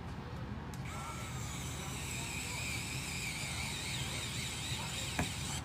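Small electric screwdriver running as it drives the tiny beadlock screws into an RC crawler wheel. It starts with a click about a second in and whines steadily, its pitch wavering slightly under load. A low hum runs underneath.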